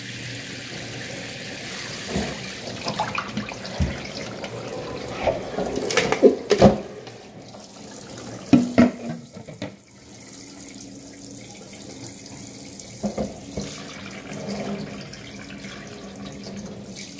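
Kitchen faucet spraying tap water into a stainless steel sink over a glass bowl holding a block of ice, to thaw it. Several sharp knocks and clunks about six and eight and a half seconds in as the glass bowl and ice block are handled against the sink, then the spray runs on steadily.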